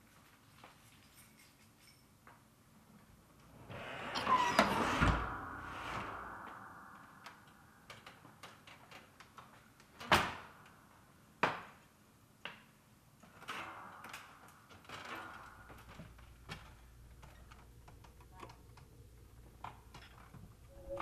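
Folding wooden attic ladder being pulled down and opened, with a scraping creak and a short squeak about four seconds in. Three sharp wooden knocks follow, a second or so apart, then some rustling.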